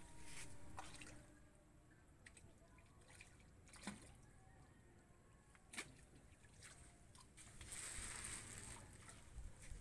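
Faint splashing and dripping of a hooked fish thrashing at the water's surface, with a couple of sharp clicks and a short burst of hiss about eight seconds in.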